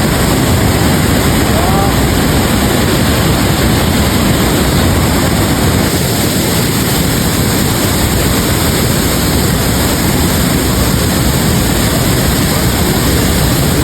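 Waterfall: falling water rushing steadily and loudly.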